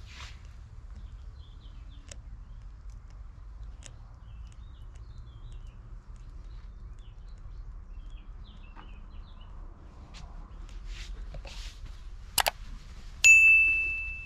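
Faint woodland background with a few small chirps, then near the end a sharp click followed by a bright bell ding that rings and fades: the sound effect of a subscribe-button animation.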